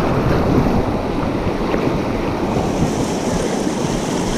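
Whitewater river rushing around a raft, a loud steady churning of water, with wind buffeting the microphone. A brighter hiss joins about two and a half seconds in.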